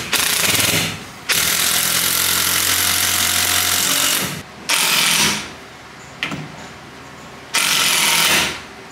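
Cordless drill boring into a wooden door-frame piece, running in bursts: a short one at the start, a long run of about three seconds, then two shorter runs.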